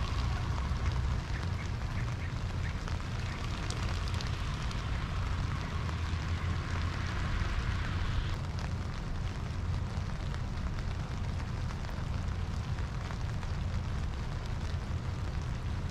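Steady rain falling, a soft hiss with fine patter, under a low wind rumble on the microphone.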